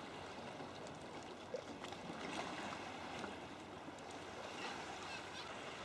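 Quiet water lapping and trickling against a sea kayak's hull on a calm sea, with small drips and splashes from the paddle.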